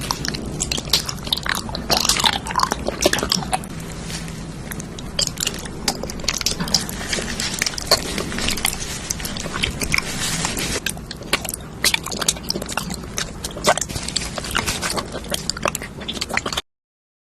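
Close-up eating sounds: a person biting and chewing food, with many quick, sharp crunching and wet clicking noises. It cuts off abruptly near the end.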